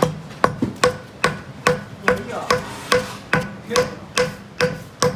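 Japanese adze (chouna) chopping into wood in a steady rhythm, about two and a half blows a second, each a sharp chop with a brief ring. It is hewing overlapping round divots into the surface.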